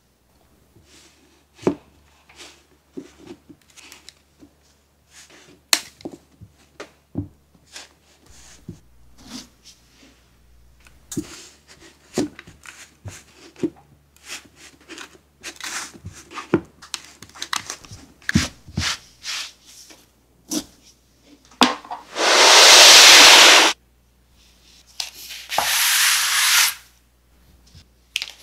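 Hands pressing and packing kinetic sand into a ring mould: soft, scattered crunching crackles, then two loud rubbing hisses of about two seconds each near the end as the sand surface is smoothed flat.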